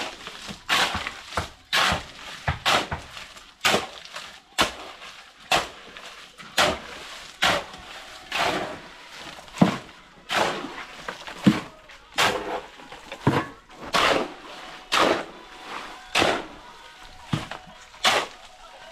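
Repeated hard knocks, a strike roughly every half second to second: builders tapping stones or blocks down so they sit firmly on the ground.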